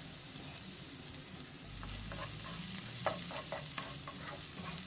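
Minced garlic, ginger and onion sizzling in butter in a nonstick frying pan, with a spatula stirring and scraping them around. The sizzle is a steady hiss that grows a little louder about two seconds in, with short scrapes of the spatula in the second half.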